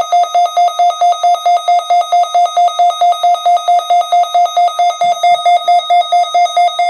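Weather alert radio receiver sounding its alarm: a loud, rapid, evenly pulsing electronic beep on one pitch. It was set off by the required weekly test.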